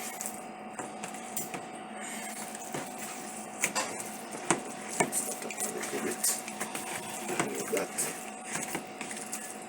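Light, irregular clicks and clinks of kitchen utensils and containers being handled during food preparation, more frequent in the second half, over a faint steady hum.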